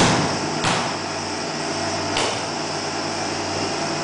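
Steady mechanical hum of a fan or cooling unit, with two short knocks, one about half a second in and one about two seconds in.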